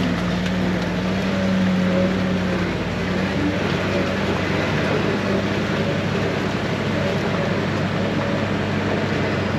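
Jeep driving along an off-road trail, its engine running steadily under a haze of drivetrain and trail noise.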